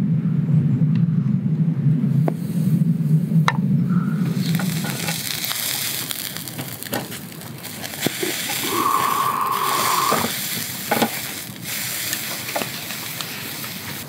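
A low steady rumble for the first few seconds gives way to thick slices of beef tongue sizzling on a wire grill over charcoal. Sharp clicks of chopsticks on the grate come through the sizzle, with a short steady tone about two-thirds through.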